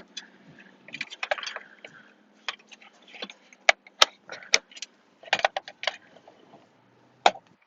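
Irregular clicks, taps and rattles of hard plastic and metal parts and tools being handled while a car dashboard is taken apart.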